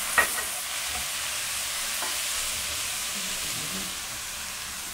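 Chopped vegetables (onion, potato, eggplant, pepper and freshly added tomato) sizzling steadily in butter in a hot frying pan as they are stirred. A sharp knock of the utensil against the pan comes just after the start, and a fainter one about two seconds in.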